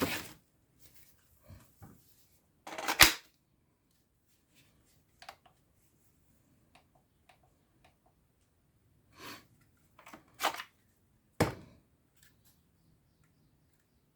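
Objects being handled: about six separate knocks and clicks spread out with quiet between them, the sharpest and loudest about three seconds in.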